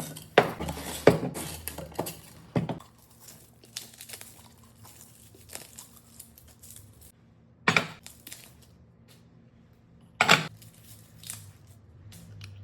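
Glass spice jars and their packaging being handled: a few sharp knocks and clinks as pieces are set down, with packaging crinkling between them.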